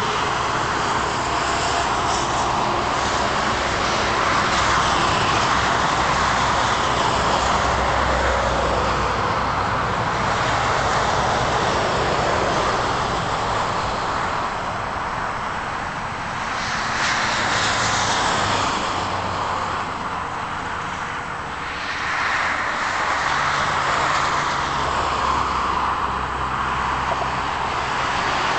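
Turbofan engines of a twin-engine jet airliner at takeoff thrust during its takeoff roll: a steady, loud rushing noise with a low rumble underneath, dipping slightly twice in the second half.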